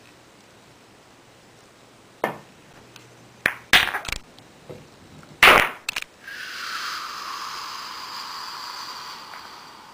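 Billiard balls and cue clacking in a string of sharp knocks, the loudest about five and a half seconds in. Then a steady rolling noise for about three seconds, falling slightly in pitch.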